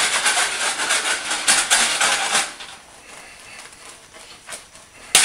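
Skillet of cream sauce sizzling as it is shaken over an electric coil burner. The sizzle is loud for the first two seconds or so, then quieter, and there is a sharp metallic knock near the end.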